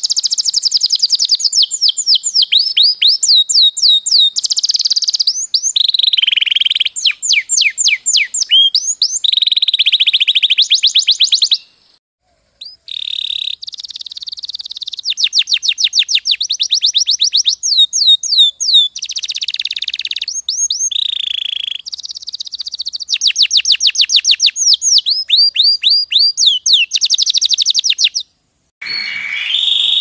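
Canaries singing loud, fast trills: long runs of quickly repeated falling chirps and rolling notes that change pattern every second or two. The song stops briefly about twelve seconds in and again near the end.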